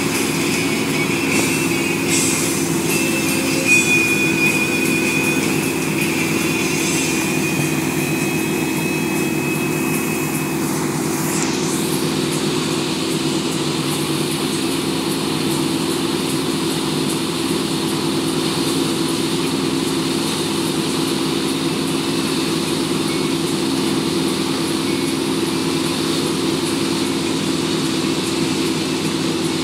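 Wake-surf boat's inboard engine running steadily under way, a constant drone over the rush of the churning wake water behind the boat.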